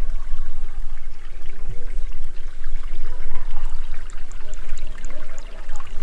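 Shallow stream of muddy water trickling and splashing over sand and small rock ledges, over a steady low rumble.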